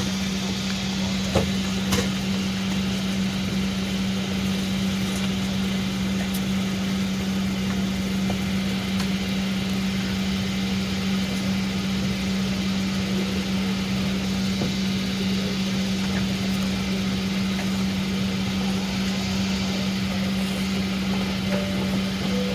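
Steady cabin hum of a Boeing 777-200 parked at the gate: air-conditioning airflow with a constant low drone. Two faint clicks about a second and a half and two seconds in.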